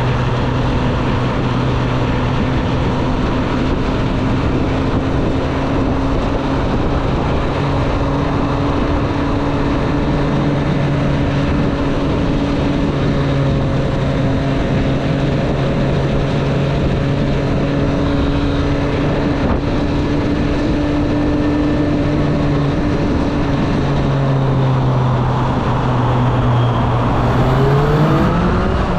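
2024 Triumph Street Triple 765 RS's inline three-cylinder engine running at a nearly steady speed while riding, with wind and road noise, then revving up sharply near the end as the bike accelerates.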